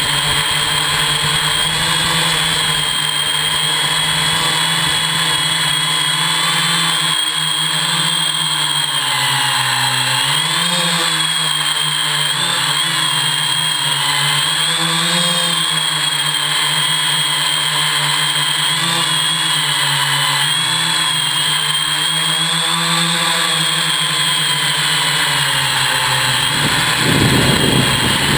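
Hexacopter's six electric motors and propellers running in flight, a steady buzzing whine whose pitch wavers up and down together as the motors speed up and slow down. A brief rush of noise rises about a second before the end.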